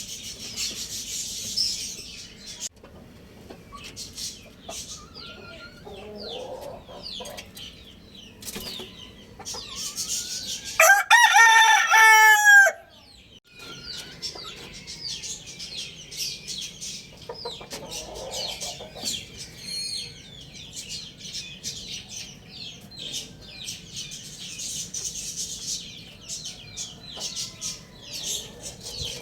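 A rooster crows once, loud and about two seconds long, partway through. Behind it are steady high chirping and occasional clucking from other fowl.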